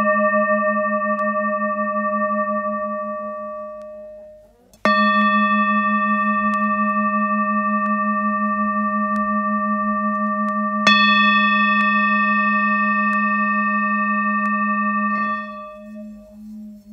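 Metal singing bowls ringing, the low tone wavering in slow pulses under several higher overtones. The first ring fades out, a bowl is struck again about five seconds in, and a second strike about eleven seconds in adds brighter overtones. Near the end the ring is damped, leaving the low tone pulsing more softly.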